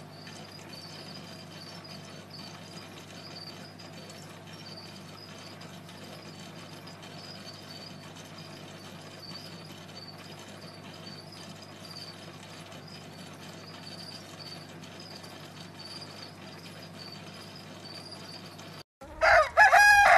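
Faint steady hum with a faint, high, repeating chirp above it. About nineteen seconds in it cuts off and a rooster crows loudly.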